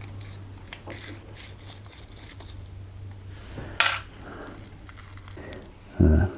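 Small handling noises of a tube of liquid-patch PVC boat glue being opened and worked in the hands: light rustles and clicks, one sharp click about four seconds in, and a dull thump near the end.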